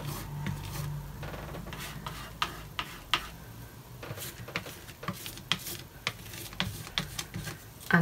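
Palette knife spreading stiff oil and cold wax paint onto paper: faint scraping with scattered light ticks as the blade touches down and lifts.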